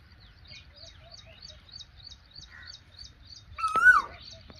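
Birds calling: a steady run of short high chirps, about four a second, and one louder call near the end whose pitch rises, wavers and drops.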